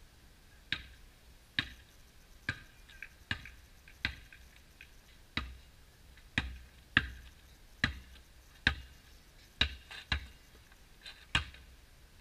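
Basketball dribbled on an asphalt driveway: about a dozen sharp bounces, a little under one a second, each with a short ringing ping, with a few fainter taps between.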